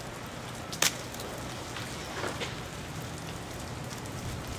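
Ice breaking loose from ice-coated tree branches as they thaw, many small pieces falling and clicking down in a steady shower like rain. About a second in there is one sharp, loud hit from a larger chunk landing.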